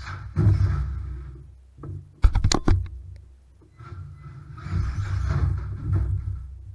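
Stock Wltoys A979 RC truck's electric motor and drivetrain whirring as it drives on OSB plywood. About two seconds in, a quick clatter of several hard knocks as the truck hits the boards, then a short lull before the motor whirs again.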